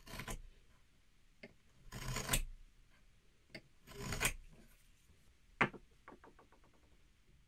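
Steel blade of a shop-made marking knife drawn along a steel rule, scoring a line into wood: three short scratchy strokes about two seconds apart. Then a sharp tap and a quick run of fading ticks as the knife is set down and rocks to rest on the board.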